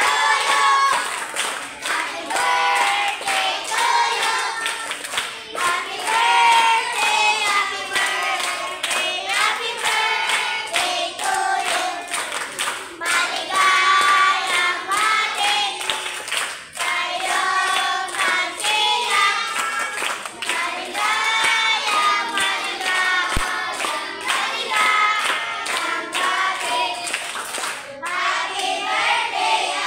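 A group of children singing together, clapping their hands along with the song.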